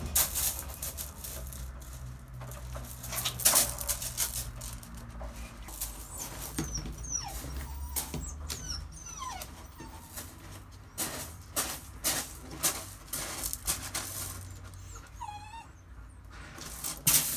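Dutch Shepherd puppy's claws scrabbling on a steep, rope-hung board, with knocks as the board swings and the puppy jumps on and off. There are a few short puppy whines.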